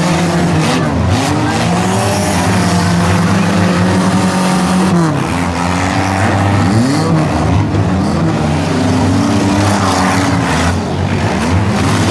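Several compact 4- and 6-cylinder car engines revving at once, their pitches rising and falling as the cars accelerate and back off. A few sharp knocks are heard along the way.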